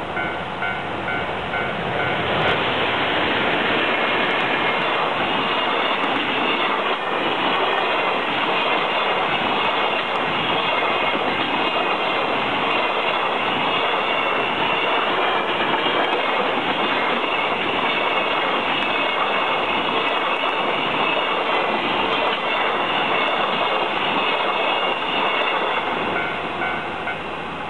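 Freight train of container wagons passing close by at speed through a level crossing, a steady heavy rumble of wheels on rail. The crossing's warning bell dings at the start and can be heard again near the end as the train clears.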